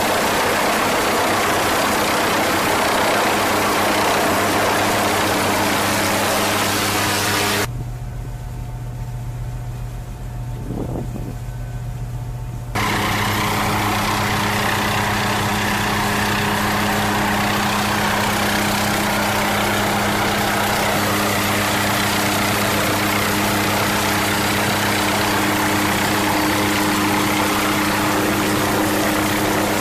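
MQ-8B Fire Scout unmanned helicopter hovering: steady rotor and turboshaft engine noise with a low hum under a broad rush. For about five seconds, starting about a quarter of the way in, it drops to a quieter, duller low drone, then the full noise returns.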